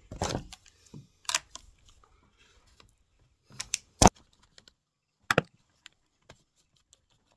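Sharp clicks and knocks of hard plastic and metal as hands work the carburettor loose from a Stihl string trimmer engine: about half a dozen separate knocks, the loudest about four seconds in, with quiet between them.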